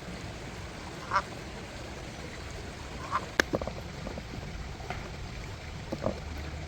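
Three short bird calls, about a second, three seconds and six seconds in, over steady low background noise, with a sharp click about three and a half seconds in.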